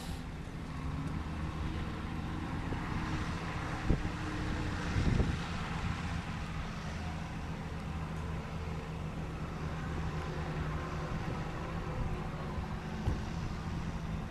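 A four-wheel-drive vehicle's engine runs steadily as it drives off-road along a rough creek-side track. There is a sharp knock about four seconds in and a heavier thump about a second later.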